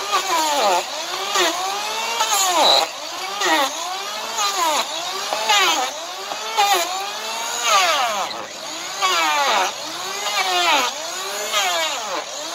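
Electric hand planer trimming an overgrown draft horse hoof wall. The motor's whine sags in pitch each time the blade bites into the hoof and climbs back between passes, about once a second, with a rasping cut at each dip.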